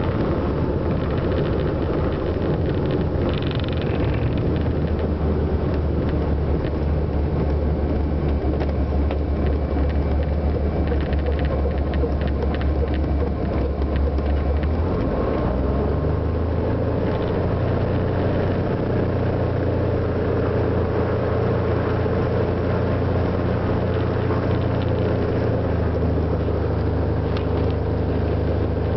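Cessna 180 Skywagon's six-cylinder Continental O-470 engine and propeller running steadily at low power as the plane rolls on the ground, heard from inside the cabin. About halfway through, the engine's note shifts as the power changes.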